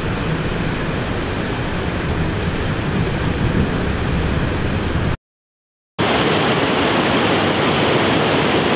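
Water pouring over a river dam, a steady rush. The sound cuts out completely for most of a second about two-thirds of the way through, then the rush of water carries on.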